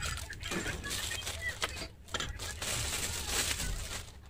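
Clear plastic packaging bags crinkling and rustling as they are handled, with a dense, louder stretch of crackling from about halfway in.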